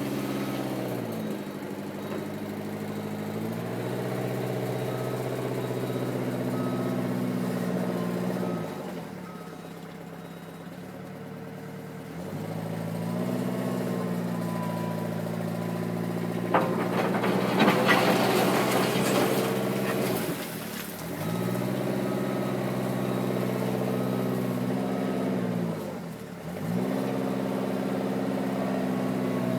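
Eurocomach E 235 K backhoe's engine working, its speed repeatedly dropping and picking up again, with a longer slower stretch about a third of the way in. A loud clattering burst starts sharply a little past the middle and lasts about three seconds.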